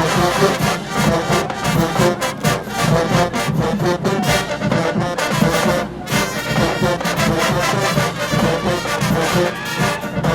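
HBCU marching band playing loudly, full brass section over a drumline's rapid hits.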